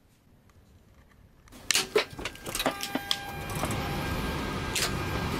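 A few sharp clicks, then a steady rushing hum with faint high whining tones builds up and holds, as the airliner's electrical power comes on.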